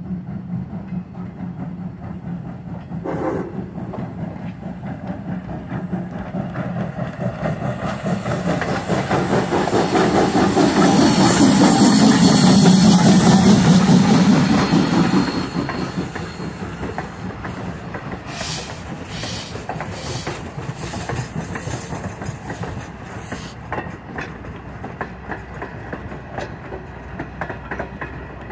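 Norfolk & Western No. 475, a 4-8-0 steam locomotive, passing under steam. Its sound builds to its loudest with a strong hiss about a dozen seconds in, then falls away as the passenger coaches roll by, their wheels clicking over the rail joints.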